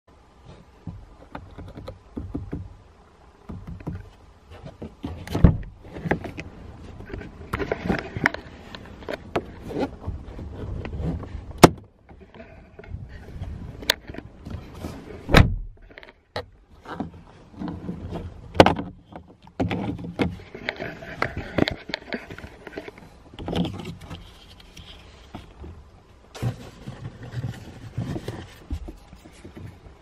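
Plastic clicks, knocks and scraping at irregular intervals as the electric window switch is prised out of the door armrest trim. Several sharp snaps stand out, the loudest about 12 seconds in.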